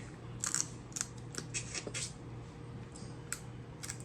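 Close-up eating sounds: a dozen or so short, crisp clicks and crackles, food and shell being handled and chewed, over a faint steady hum.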